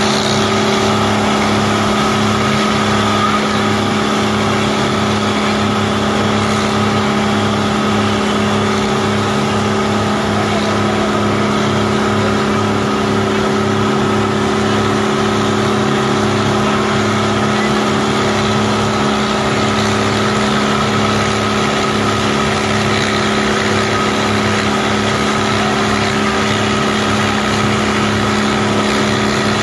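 Boat engine running steadily at speed, a constant drone with a rush of wind and water over it.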